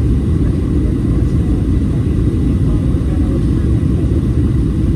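Steady low rumble of a Boeing 737 in flight, its engines and rushing air heard inside the passenger cabin.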